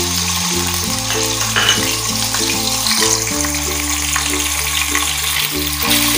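Raw chicken sizzling in hot ghee in a frying pan: a steady hiss of frying.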